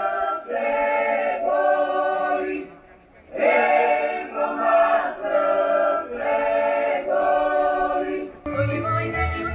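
Large choir singing a folk song in slow, held phrases, with a short break about three seconds in. Near the end it cuts to instrumental music with a pulsing bass.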